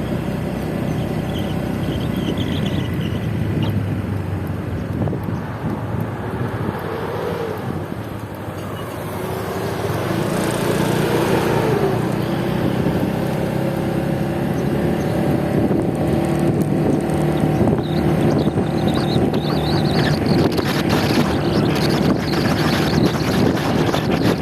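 Motor scooter engine running on the move, with wind buffeting the microphone; the engine sound grows louder about ten seconds in and then holds steady.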